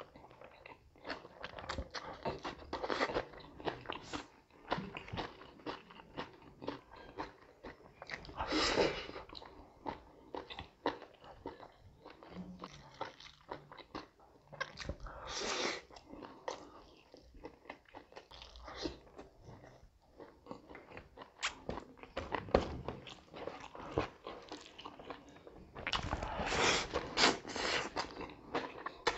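Close-miked eating sounds of a person chewing and biting pork and rice eaten by hand, with many small mouth clicks. There are louder stretches about nine seconds in, around fifteen seconds and near the end.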